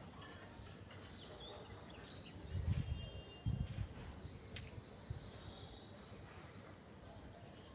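Several small birds chirping, with a fast, high, evenly pulsed trill lasting about two seconds past the middle. Two loud low rumbles come just before it.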